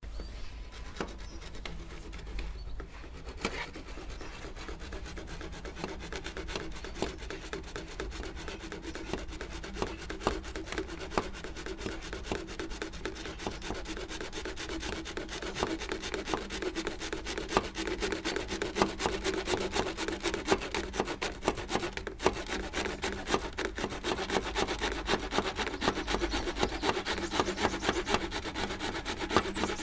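Hand saw cutting through black plastic drainage pipe in repeated back-and-forth strokes, getting louder about halfway through.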